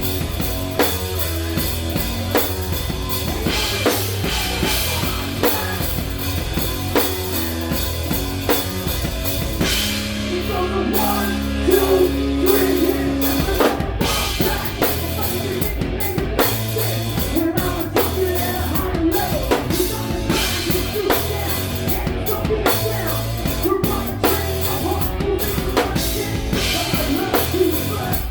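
Live rock band playing: a drum kit keeps a steady beat under electric guitar and bass, with a held low note about ten seconds in before the beat drives on.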